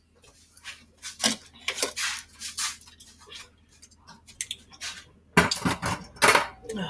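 Kitchen utensils and containers being handled: irregular clinks, knocks, scrapes and rustles, busiest and loudest about five and a half seconds in.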